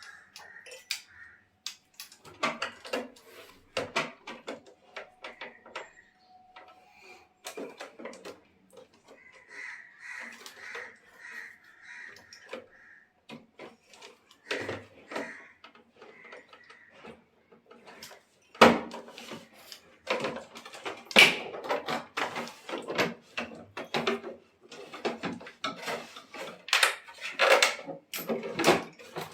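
Irregular clicks, knocks and clatter of a water purifier's casing and parts being handled during a pump repair, getting louder and busier in the second half.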